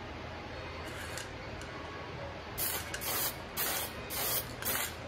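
Aerosol can of raw umber wood toner sprayed in a quick series of short hissing bursts, about five of them, starting about two and a half seconds in.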